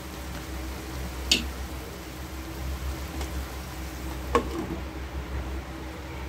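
Two sharp clicks about three seconds apart over a steady low hum; the second click rings on briefly.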